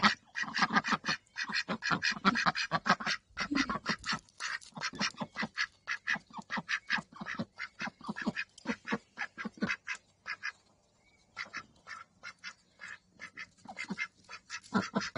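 White domestic ducks quacking in quick runs of short calls, several a second, with a pause of about a second some two-thirds of the way through, after which the calls come more sparsely.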